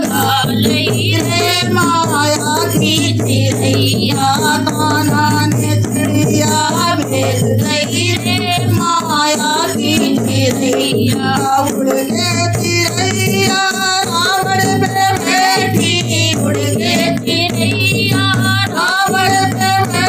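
Women singing a Hindi devotional Krishna bhajan in folk style, with a steady hand-played dholak drum beat underneath.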